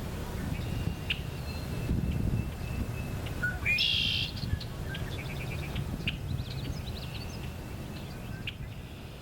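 Male red-winged blackbird singing its conk-la-ree once, about three and a half seconds in: a short rising note and then a loud buzzy trill, followed by shorter chips and calls, over a low steady rumble.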